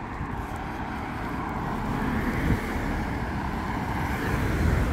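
A car driving along the street toward the microphone, its road and engine noise growing steadily louder.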